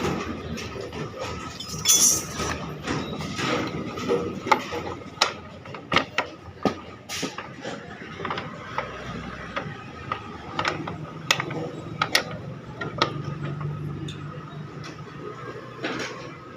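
Irregular sharp metallic clicks and knocks of mechanical work on a Hero Splendor motorcycle's brake.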